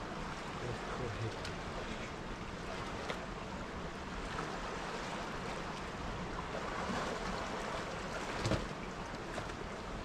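Steady rush of a fast, turbulent river, with one short knock about eight and a half seconds in.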